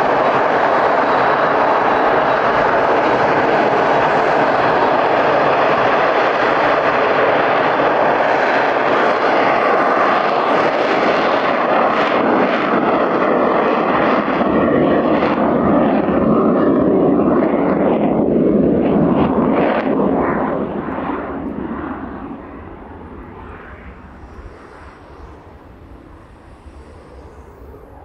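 Kawasaki T-4 jet trainer's twin turbofan engines at takeoff power, loud and steady through the takeoff run. The sound fades away quickly about two-thirds of the way through as the jet lifts off and climbs out.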